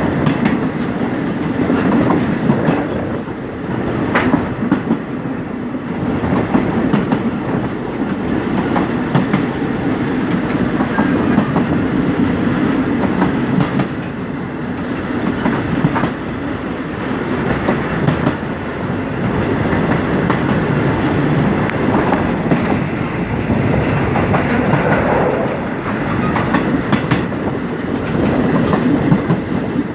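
Express passenger train running at speed, heard from inside a carriage: a steady rumble and rattle of the wheels on the track, with scattered sharp clicks.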